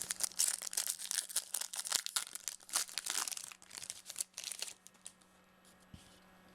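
A trading-card pack's wrapper being torn open and crinkled: a quick run of crackles and rips for nearly five seconds, then it stops.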